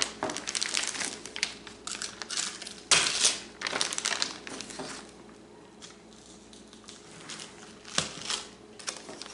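Clear plastic zip-lock bag and plastic separator sheets crinkling and rustling as frozen kebab patties are handled and slid into the bag, with a sharp crackle about three seconds in, a quieter stretch in the middle, and another crackle near the end.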